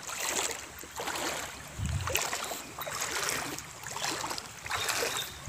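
Legs wading through shallow river water, a sloshing splash with each stride, about one a second.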